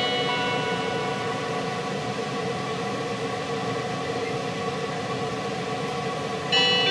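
Steady hum and hiss inside a JNR 485-series train car, with a few constant held tones from its onboard equipment. The last notes of the onboard chime fade away at the start, and the next chime melody starts about six and a half seconds in.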